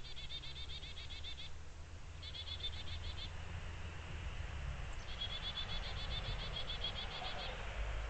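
A small bird's rapid trill, a fast run of identical high notes given three times: at the start, again about two seconds in, and a longer run from about five seconds in. A low rumble sits underneath.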